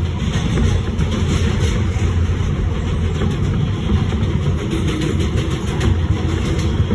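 New York City subway train running at speed, heard from inside the car: a steady, loud rumble of wheels on rail and car running gear.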